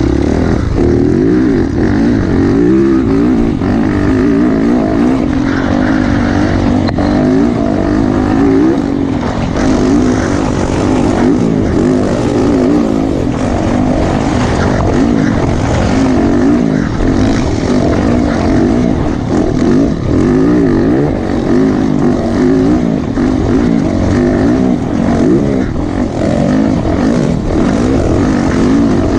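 Yamaha YZ450F's 450 cc single-cylinder four-stroke engine, heard from on board, running hard at high revs. Its pitch rises and falls over and over as the throttle is worked through the gears.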